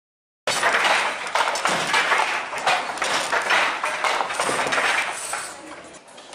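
Handloom weaving clatter: a dense run of quick wooden knocks and taps that starts abruptly after a brief silence and fades somewhat near the end.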